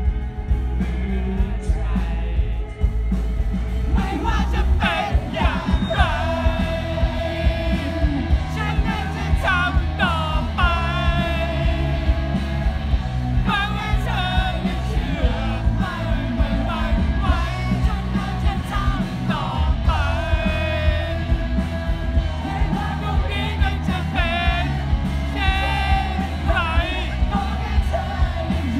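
Live rock band playing electric guitars, bass and drums, with a male singer's lead vocal coming in about four seconds in. Heard from within the crowd at a concert.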